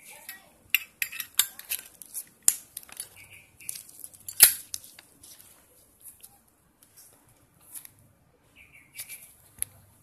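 Zippo 150ZL Black Ice lighter's metal case handled in gloved fingers: a run of sharp metal clicks and clinks, the loudest about four and a half seconds in, then sparser taps.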